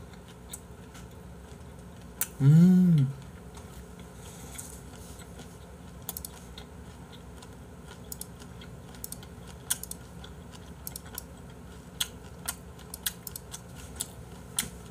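A man lets out one appreciative 'mmm' with his mouth full of raw beef, the pitch rising then falling. From about halfway on come soft, irregular clicks.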